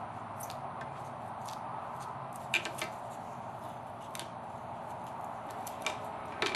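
Scattered small clicks and crackles of tape being peeled off scroll-sawn wooden pieces, over a steady background hum.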